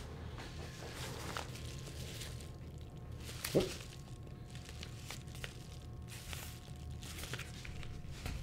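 Quiet handling noises: an office chair being moved and sat in, and a paper envelope being handled and opened, with faint rustles and light knocks over a steady low hum. One short, louder sound about three and a half seconds in.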